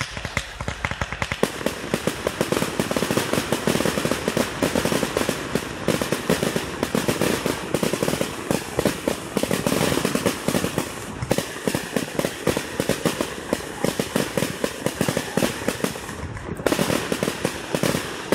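Fireworks display going off: a dense, continuous barrage of bangs and crackles, many reports a second. The barrage thins briefly about sixteen seconds in, then another rapid run of bangs follows.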